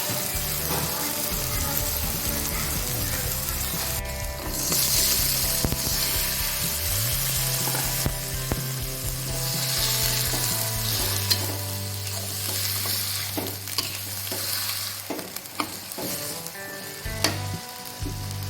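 Food sizzling as it fries in a pan, the hiss growing louder about four seconds in, with a few sharp clicks from a utensil near the end.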